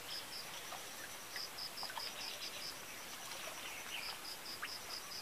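High-pitched chirping from a small calling animal, pulsed notes about six a second in short trains that come three times, with a few faint clicks beneath.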